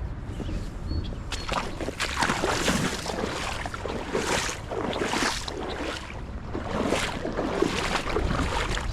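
Water sloshing in a series of swishes, roughly one a second, over a steady low rumble of wind on the microphone.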